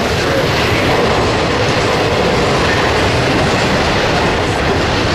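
Intermodal freight train of truck trailers and containers on flatcars passing close by: a loud, steady rumble of steel wheels rolling on the rails.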